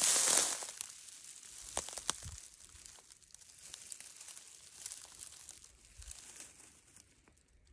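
Dry weeds and leaf litter crackling and rustling underfoot as someone walks slowly through dead brush. A loud rustle right at the start, then scattered snaps and crackles that thin out near the end.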